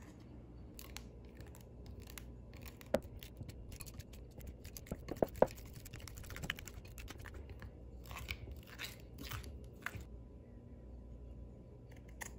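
Blue slime being stirred and pulled by hand in a glass bowl: irregular sticky, wet clicks and crackles, thickest about halfway through, then a single scissors snip near the end.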